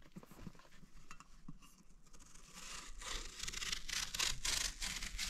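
Small kitchen knife cutting through a melon's rind and flesh, faint at first, then quick repeated sawing strokes from about halfway in.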